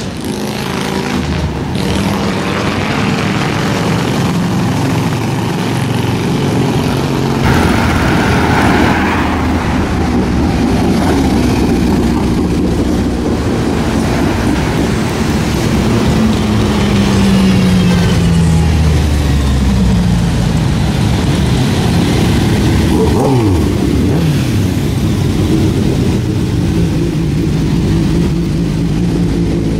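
Motorcycles riding past on a city street, their engines revving. Several pass-bys fall in pitch as the bikes go by, over a continuous rumble of engines.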